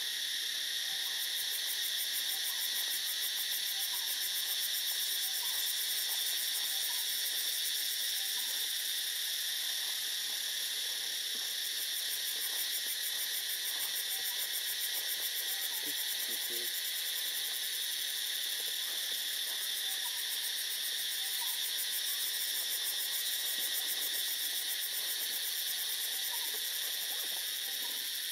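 Steady, high-pitched insect chorus of the forest canopy, a continuous shrill drone with a fast pulsing buzz. Short, faint calls from another animal repeat every second or so beneath it.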